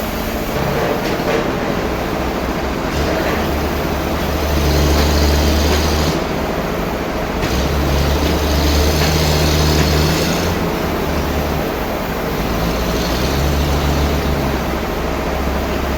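Sawmill machinery running loudly and steadily, with a deeper hum and a hiss swelling three times, for a couple of seconds each.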